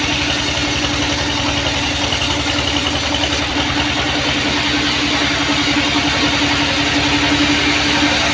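Sawmill band saw machinery running with a steady, low, pulsing drone.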